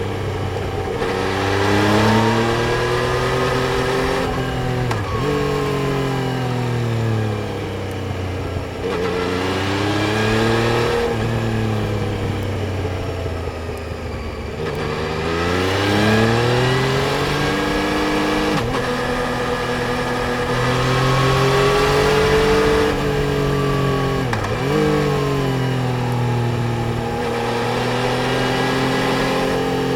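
Yamaha Tracer 900 GT's three-cylinder engine being ridden hard through the gears: its pitch climbs under acceleration, drops sharply at each shift about five times, and sinks away when the throttle closes, then climbs again.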